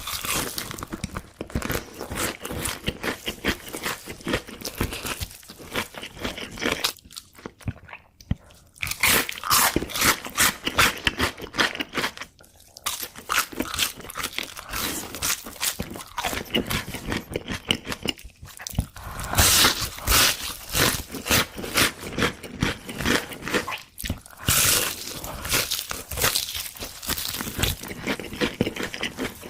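Close-miked eating sounds: big crunchy bites of fast food and wet chewing, a dense crackle with short pauses between bites.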